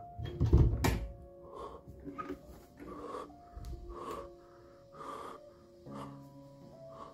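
A loud thump with a sharp knock about half a second in, then a person breathing heavily, about one breath a second, over background music with long held notes.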